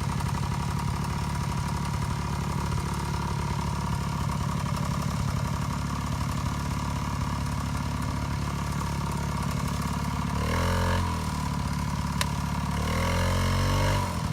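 Vintage snowmobile's two-stroke engine idling steadily, then revved up twice in short bursts near the end as the sled, stuck on a stump, fails to pull free.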